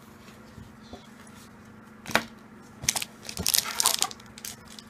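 Pokémon trading cards and foil booster-pack wrappers being handled on a table: a sharp tap about two seconds in, then a burst of crinkling and rustling.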